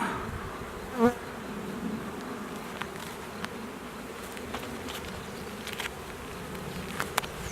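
Honey bees buzzing steadily around an open hive, with one brief louder buzz about a second in and a few faint clicks.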